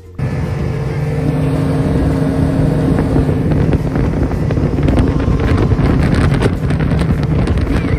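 Speedboat under way: its engine running steadily with a low hum, and wind buffeting the microphone. It cuts in suddenly just after the start.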